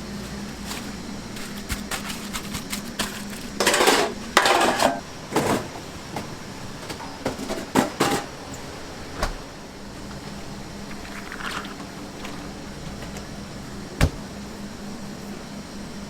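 Restaurant kitchen work: scattered clicks, knocks and clatter of utensils and dishes, busiest from about three to eight seconds in, and one sharp knock near the end, over a steady machine hum.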